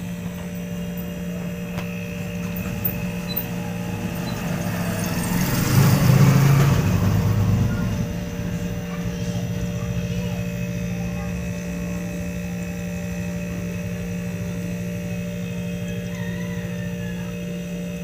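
Hanabishi refrigerator's QD43H hermetic compressor running with a steady hum, a sign the compressor is good and operational. A brief louder rushing noise rises and fades about six seconds in.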